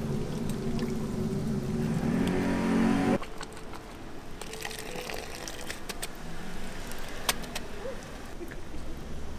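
A steady engine hum, rising slightly in pitch, cuts off abruptly about three seconds in. After it come sharp metal clinks and the swish of water as mesh noodle-straining baskets (tebo) are shaken and knocked against the pot to drain the noodles.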